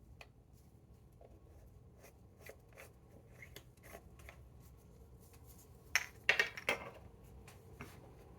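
Hands handling joint-rolling materials: scattered soft rustles and light clicks, with a louder cluster of crisp rustling strokes about six seconds in.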